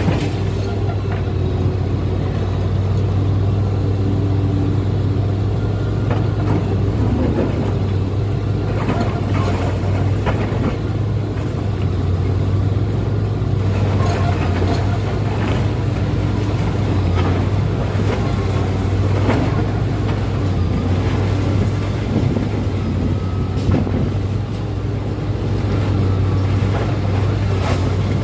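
Liebherr 944 demolition excavator's diesel engine running steadily under load, with crunching and clatter of concrete being broken off by its jaws and falling at several moments.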